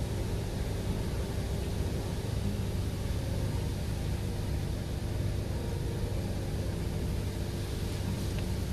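Automatic car wash running: a steady rumble and hiss from its rotating brushes and water spray working over a car, with a low steady hum underneath.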